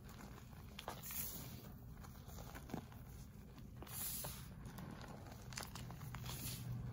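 Hands crushing and crumbling loose pink gym chalk and cornstarch: soft crunches and small clicks as clumps break, with brief hissing rushes of sifting powder about a second in, around four seconds in and near the end.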